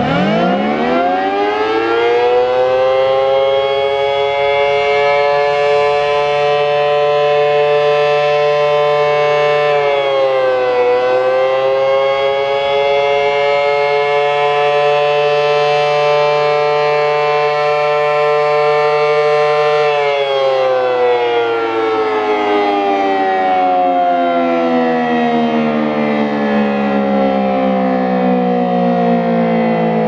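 Federal Signal SD-10 and Model 2 outdoor warning sirens sounding together in a short steady alert test. They wind up quickly to a steady tone, dip briefly in pitch about ten seconds in and recover, then wind down in a long falling moan from about twenty seconds in. The uploader judges both sirens underpowered on their wind-up, the Model 2 badly so.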